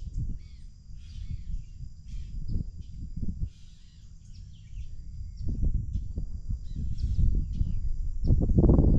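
Birds calling in short, scattered high calls, over a low wind rumble on the microphone that grows stronger near the end.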